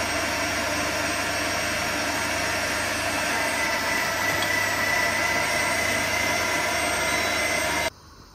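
Meat-grinder attachment of an electric kitchen machine running steadily with a low hum while hot chili peppers are pushed through it; the motor noise cuts off abruptly near the end.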